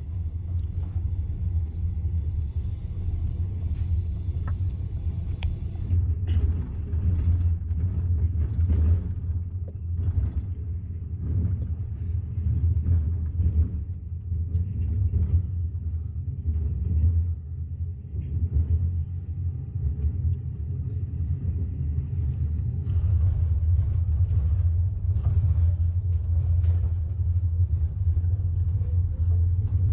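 Steady low rumble of a moving train, with irregular knocks and clatter on top.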